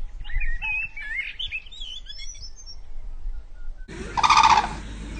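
Gray crowned cranes calling: a run of high, warbling chirps, then, after an abrupt change in the background, one loud, short honk a little before the end.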